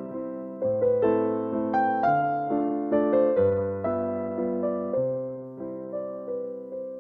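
Background music: a gentle piano melody over low bass notes, each note struck and then fading.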